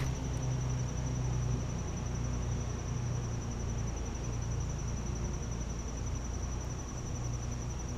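Steady high-pitched insect trill, a fast even pulsing that never breaks, over a low steady rumble.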